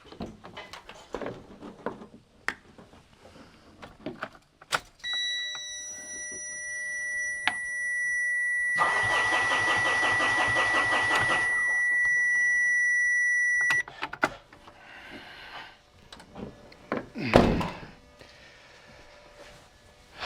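A Mitsubishi Fuso 4P10 diesel truck is cranked by its starter for about three seconds without firing, under a steady high-pitched warning beep that sounds for several seconds and cuts off suddenly. The engine still refuses to start with the oil pressure switch unplugged. Small knocks come before, and a brief loud thud comes near the end.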